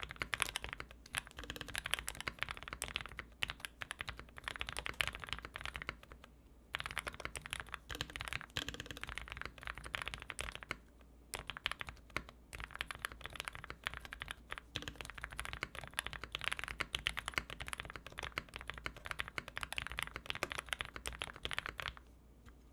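Fast, steady typing on a Kira 80 mechanical keyboard with Gateron Ink 80 g switches, a dense run of keystrokes broken by two short pauses and stopping just before the end.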